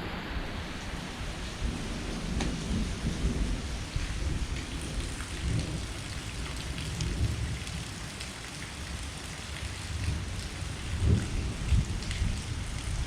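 Heavy rain falling, with fine spattering drops, under low rolling thunder that swells twice, the second time near the end.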